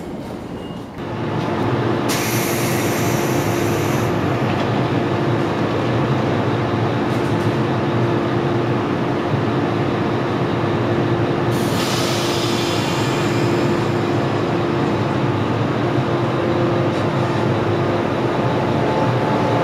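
JR 113 series electric train moving along the station platform with loud, steady running noise and a steady hum. Two spells of high hissing or squealing come through, one just after the start and another about eleven seconds in.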